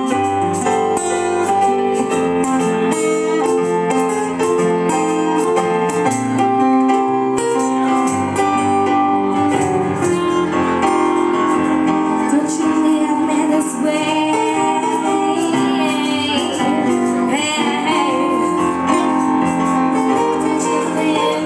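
Live keyboard (electric piano sound) and acoustic guitar playing a song, with a woman's singing voice coming in about halfway through.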